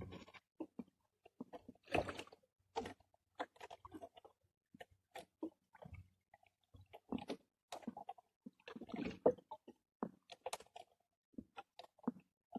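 Irregular soft knocks, taps and rustles of a fishing handline being hauled and handled by hand against a small wooden boat's hull.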